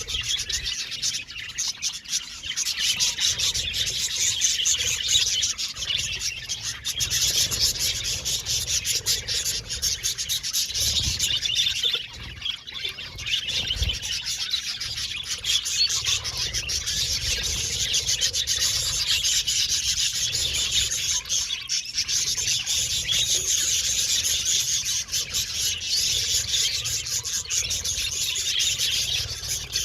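A flock of budgerigars chattering and chirping together in a dense, continuous warble with a scratchy texture, easing briefly about twelve seconds in.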